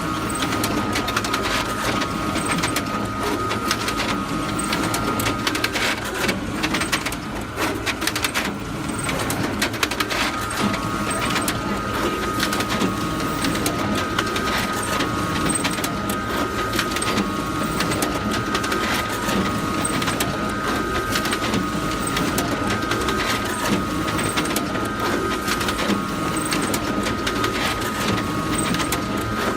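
Photocopier running continuously: a steady mechanical whir with a constant high tone and dense fine ticking.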